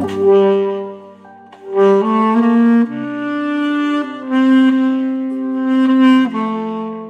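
Instrumental music: a saxophone plays a slow melody of long held notes over a keyboard backing track.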